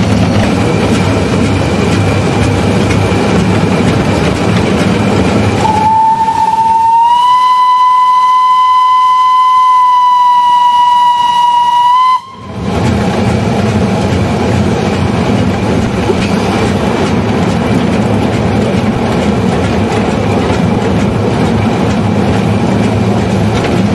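A steam locomotive whistle blown once for about six seconds, starting about six seconds in. It is a single steady note that rises slightly as it opens and then cuts off sharply. Around it is the steady running noise in the cab of the 1892 class 7a steam locomotive no. 11 'Ulka' on the move.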